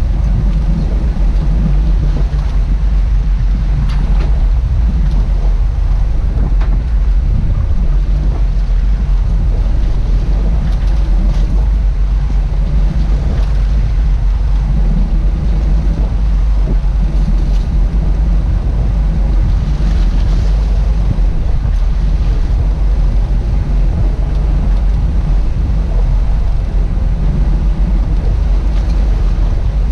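Boat engine running steadily, a loud, constant low drone, with wind and water noise over it.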